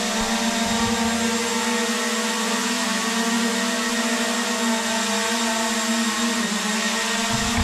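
Small foldable quadcopter drone hovering indoors, its four propellers giving a steady high whine over a rushing hiss. Near the end the pitch dips slightly as the motors slow.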